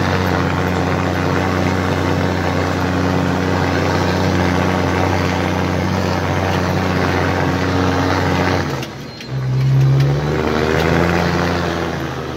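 Deutz-Fahr Agrotron M650 tractor's six-cylinder diesel engine running steadily, heard from inside the cab. About nine seconds in, the note drops away briefly and then comes back louder with a changed pitch.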